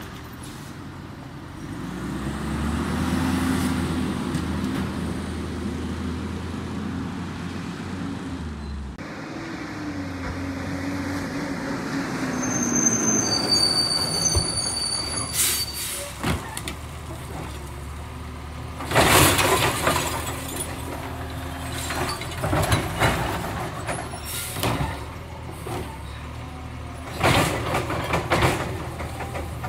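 Labrie Automizer automated side-loader garbage truck: its engine revs up and runs as the truck drives, then a few brief high squeals, air-brake hisses and knocks as it stops at the curb. Near the end come several sharp bangs as the side arm lifts and dumps a cart.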